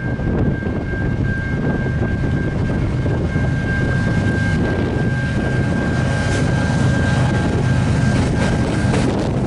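Diesel freight locomotives, a GE ES44DC leading an EMD SD70M-2, running past close by with a heavy steady engine rumble and a thin high whine. Sharp wheel clicks over the rail joints start coming in during the last few seconds.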